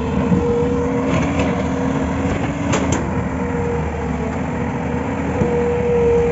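JCB tracked excavator's diesel engine running steadily as the machine digs into loose earth, with a steady whine over the rumble. A couple of sharp clicks near the middle.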